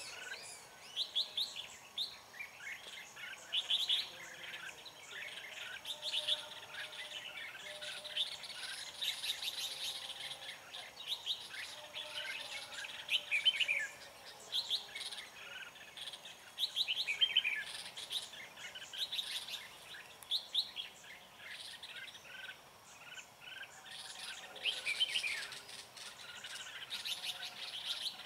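Red-whiskered bulbuls singing and calling: repeated bursts of quick, bright chirping phrases, at times from more than one bird at once, as in a territorial song duel.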